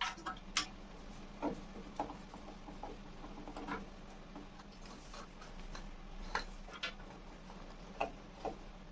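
Irregular light clicks and small knocks of bolts and hand tools being handled while the band saw's cast iron table is bolted to its platform, over a faint steady hum.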